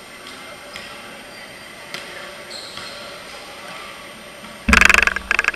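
Volleyball being played in a large covered hall: a few faint, echoing knocks of the ball being struck. Near the end comes a sudden loud sound, followed by rapid, uneven rattling pulses.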